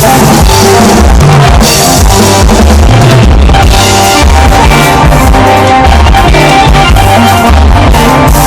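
Live band playing with drum kit, bass and guitar, recorded very loud and unclear through a phone's microphone.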